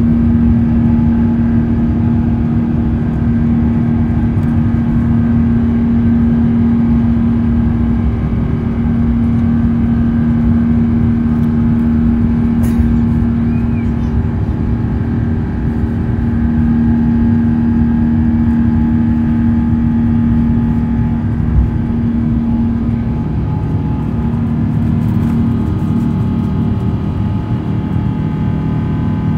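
Rolls-Royce Trent XWB engines of an Airbus A350-900 at takeoff thrust, heard inside the cabin over the wing: a loud, steady drone with a constant hum over the rumble of the takeoff roll. A single thump comes about two-thirds in, and soon after the hum shifts lower as the aircraft lifts off and climbs.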